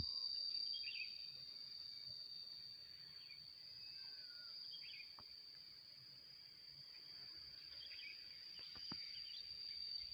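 Steady high-pitched insect drone, one unbroken tone, with short bird chirps scattered over it and a couple of faint clicks.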